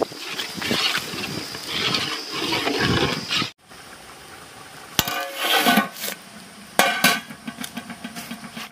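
Metal ladle stirring watery curry in a large metal pot, sloshing and scraping against the sides. After a sudden cut about halfway, a few sharp metal clanks as a lid and ladle are set on the pot.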